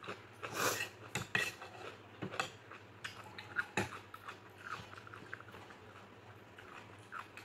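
Eating by hand: paratha being torn and scooped through curry in a ceramic bowl, with scattered sharp clicks and scrapes of fingers and food against the bowl and plate, and chewing. The loudest clicks come a little after one second and near four seconds in.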